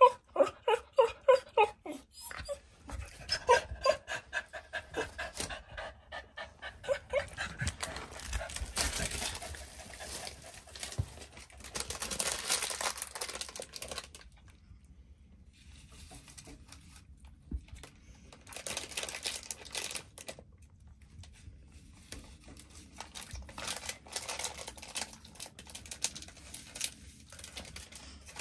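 American cocker spaniel whining and "talking" in quick, pitched whimpering calls, a fast run of them at the start and more over the next few seconds, one of them held for a moment about four seconds in. Later come longer stretches of breathy, rustling noise.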